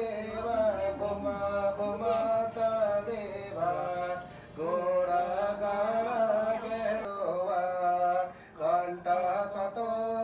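A voice chanting Buddhist prayers in long, held melodic phrases, breaking off briefly about four seconds in and again about eight seconds in.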